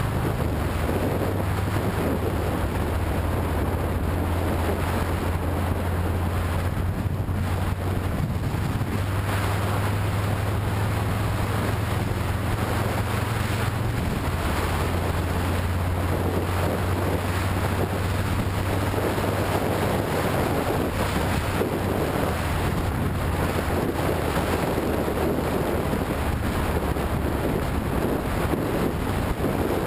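Motorcycle riding at steady road speed: wind rushing over the microphone over a low, steady engine drone.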